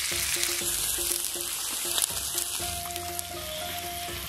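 Skewered meat and squid sizzling in oil on a hot teppanyaki griddle, a steady hiss that slowly fades. Light background music with short repeated notes plays over it.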